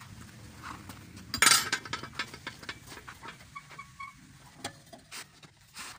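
Steel pipe legs of a homemade frame being handled and fitted into place: a few metal knocks and clanks, the loudest a sharp clank about one and a half seconds in.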